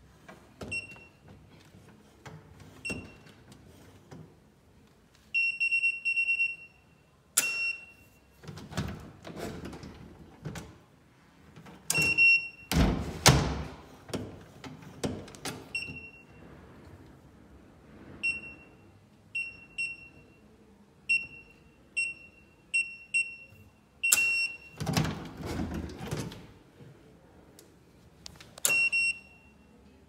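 Secustone fingerprint smart lock's keypad beeping: short single beeps as keys are pressed, a quick run of about ten in the second half, and two held tones about a second long. In between come clunks and thuds from the lever handle, latch and door, the loudest about thirteen seconds in.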